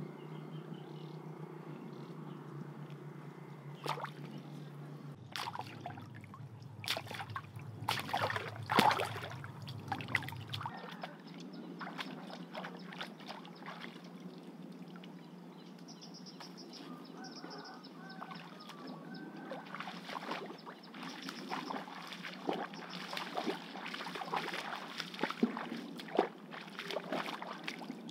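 Shallow pond water splashing and sloshing as a person wades knee-deep and handles fish. The splashes come irregularly, the loudest about nine seconds in, and come thick and fast through the last several seconds as she wades.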